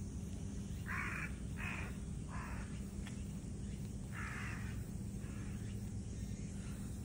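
A bird's harsh calls: three in quick succession about a second in, one more about four seconds in, then a few fainter ones, over a steady low background hum.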